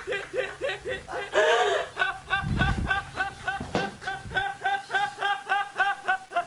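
A woman laughing hysterically in rapid, high-pitched "ha" bursts, about four to five a second, with a brief shriek near the start and a low bump about two and a half seconds in.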